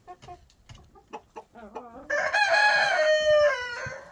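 Chickens clucking in short calls, then a rooster crows once about halfway in: one long call of about two seconds that drops in pitch toward its end.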